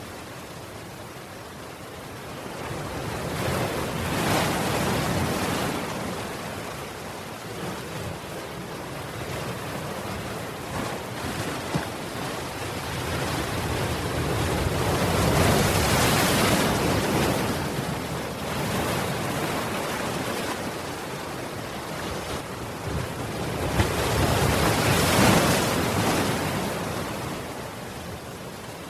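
Ocean surf breaking against a seawall and washing across the paved promenade, a continuous wash that swells into a louder crash three times: a few seconds in, around the middle, and near the end.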